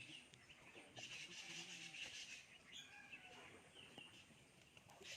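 Faint bird chirps over quiet rural outdoor ambience.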